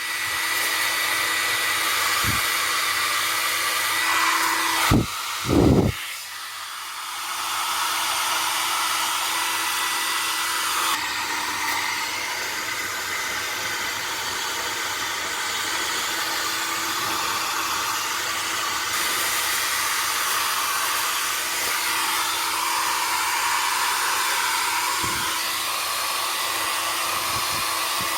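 Nova NHP 8100 1200-watt hair dryer running on high: a steady rush of air from its fan with a faint motor whine. Two knocks come about five seconds in, after which the sound dips briefly and builds back up.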